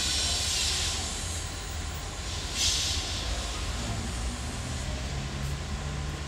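Angle grinder cutting through the steel of a stadium roof structure at a distance, heard as two hissing bursts, one near the start and one about two and a half seconds in, over a steady low rumble. A faint low engine-like hum comes in about four seconds in.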